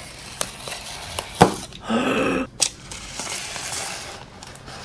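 Box cutter opening a cardboard shipping box: a few sharp clicks, then a longer scratchy rasp as the blade cuts through the packing tape.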